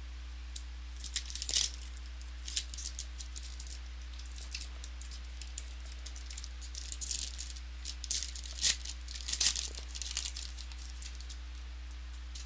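Trading cards being handled and sorted by hand, with irregular crinkling and scraping of cards and packaging, loudest about a second and a half in and again around eight to ten seconds in. A steady low hum runs underneath.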